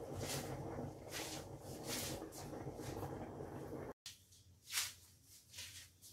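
Faint rustling and handling noises at a kitchen counter. The sound cuts out about two-thirds of the way through, and after it come a couple of short knocks, the loudest just under a second later.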